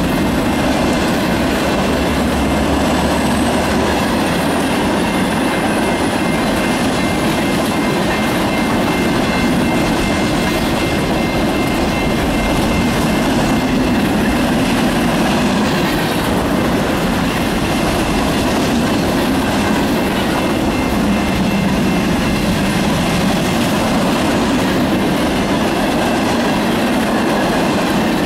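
Freight train cars rolling steadily past at close range: a continuous rumble and rattle of wheels on the rails.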